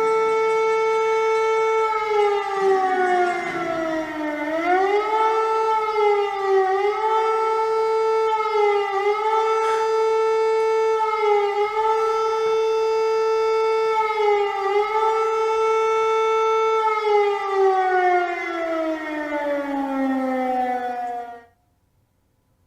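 Civil defense warning siren: one steady tone that sags in pitch about two seconds in and climbs back, then wavers with a slight dip every couple of seconds. From about seventeen seconds it winds down in pitch and stops abruptly a second before the end.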